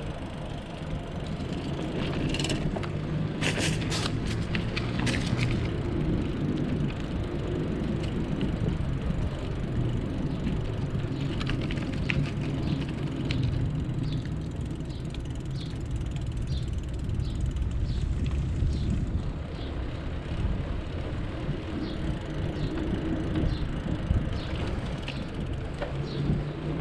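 Bicycle riding noise picked up by a chest-mounted action camera: a steady low rumble, with a cluster of sharp rattles about two to five seconds in and light, regular ticking in the second half.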